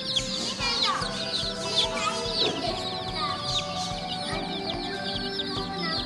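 A flock of baby chicks peeping constantly, many short high falling peeps overlapping into a dense chorus, over background music.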